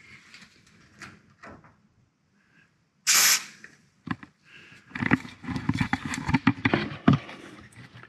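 A short burst of aerosol white lithium grease spraying through its straw onto a garage door hinge pin, a half-second hiss about three seconds in. It is followed by a run of clicks and knocks of the can and hardware being handled.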